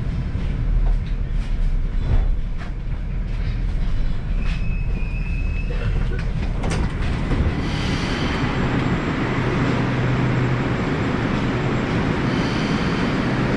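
Moskva-2020 metro train coasting to a stop at a platform, its running gear rumbling, with a thin high whine for about a second midway. After a click the sound opens up into the steady noise of the station platform as the doors open.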